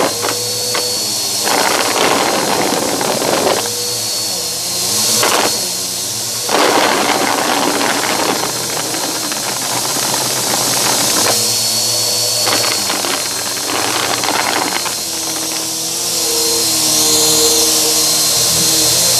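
Bissell upright vacuum running on shag carpet, picked up close by a microphone on the vacuum: a steady motor hum and whine, with repeated stretches of rattling as eraser and rubber pieces are sucked up through the brushroll, and the motor's pitch bending as the vacuum is pushed and pulled.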